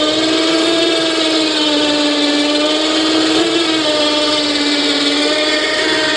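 A 12-volt, 2,000-pound electric winch running under load as it hoists a roughly 450-pound power supply chassis on a crossed stainless steel cable. Its motor gives a steady whine whose pitch wavers slightly.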